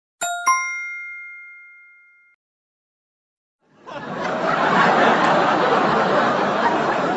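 A bell-like ding: a light tap, then one struck ring with several bright pitches that fades out over about two seconds. After a pause of over a second, a dense, steady wash of noise starts and runs on.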